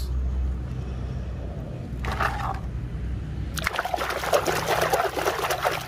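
A hand swishing through a basin of muddy water, washing a plastic toy: a short splash about two seconds in, then continuous vigorous splashing and sloshing from about halfway through until just before the end.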